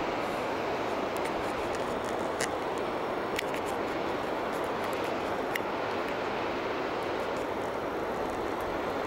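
Steady rushing of a mountain river over rocks, even and unbroken, with a few light clicks on top.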